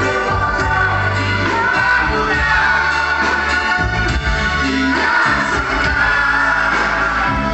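Live band playing with singing: sustained, gliding vocal lines held over steady bass notes.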